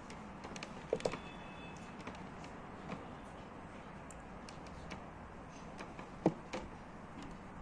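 Light handling sounds at an enamel mixing bowl: a few short knocks and clicks over a faint steady background hiss. The loudest knock comes a little after six seconds in.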